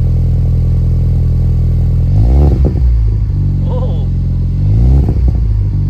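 2021 Ford Bronco engine idling through a newly fitted MBRP stainless cat-back exhaust, heard at the tailpipe. The engine is blipped twice, about two seconds in and again near the end, the revs rising and falling back to idle each time.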